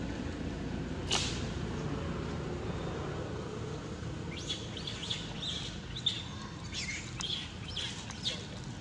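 A run of short, high chirps and squeaks from about four seconds in, some sliding in pitch, over a steady low background rumble. A single sharp tick about a second in.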